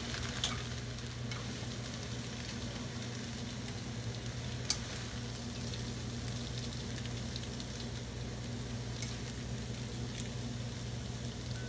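Stir-fried glass noodles sizzling faintly in the still-hot steel frying pan with the burner just turned off, over a steady low hum. A few light clicks of wooden chopsticks against the pan and plate, the clearest about five seconds in, as noodles are lifted out.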